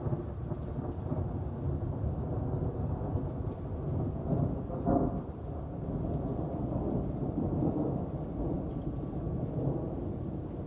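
Rolling thunder from a thunderstorm: a long, low rumble that builds and is loudest about halfway through, then slowly fades, with rain falling steadily.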